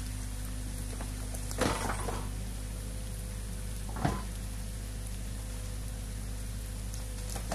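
Excavator's diesel engine running steadily under a constant hiss, with two sharp clunks from the working machine, one about a second and a half in and another about four seconds in.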